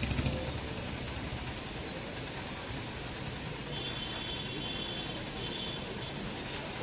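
Street traffic noise, with auto-rickshaw and motorbike engines running in a steady hum. A faint high-pitched tone sounds for about two seconds in the middle.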